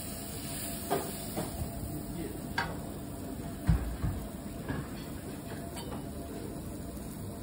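Steel teppanyaki spatulas scraping and tapping on the griddle, then knocking against a porcelain plate as the food is set down: a few sharp clicks and a dull thump about halfway through, over a steady hiss.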